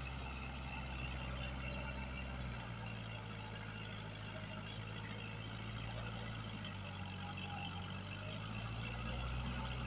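Kubota L5018 tractor's diesel engine running steadily while it works a muddy rice paddy. Its low note changes about two and a half seconds in and returns near the end.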